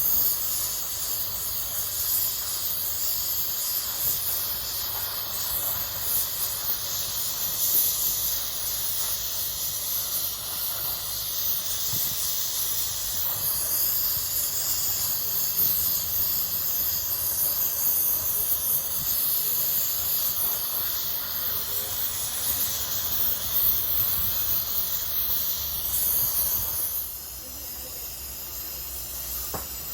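Gas-welding torch flame hissing steadily as a hole in a motorcycle crankcase is welded shut, dropping in level near the end.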